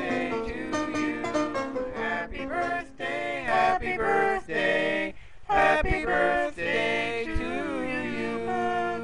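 A song with sung, gliding vocal lines over music, ending on a steadier held note about eight seconds in.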